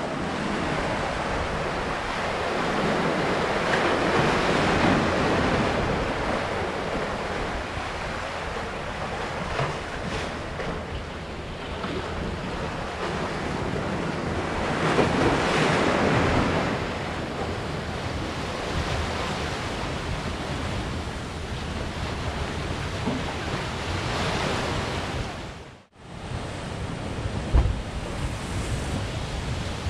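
Ocean surf surging and breaking against rocky ledges, swelling louder several times, with wind buffeting the microphone. The sound drops out for an instant near the end.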